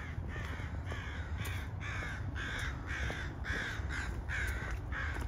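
Crows cawing in a rapid, unbroken series of short harsh calls, about two to three a second, over a low background rumble.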